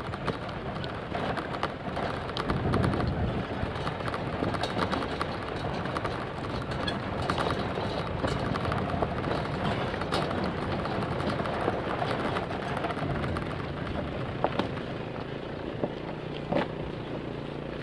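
Vehicle travelling over a rough dirt track: a steady rumble of engine, wind and road noise, with frequent knocks and rattles from the bumps. A steady low engine tone joins it about three-quarters of the way through, as another motorcycle approaches.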